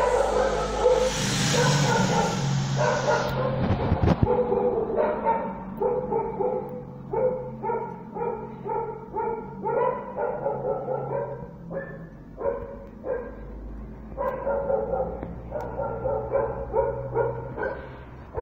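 A dog barking in quick runs of short barks over a steady low hum, with a rushing noise in the first few seconds.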